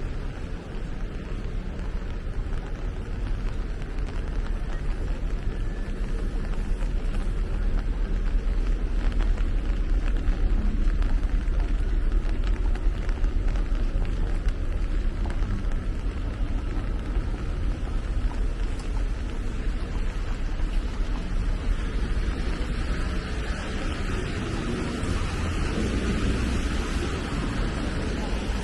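Steady rain with a low rumble underneath, unbroken throughout.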